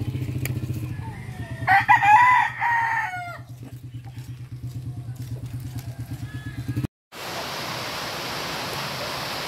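A rooster crows once, about two seconds in, over a steady low pulsing motor hum. The sound cuts out abruptly about seven seconds in and gives way to an even hiss.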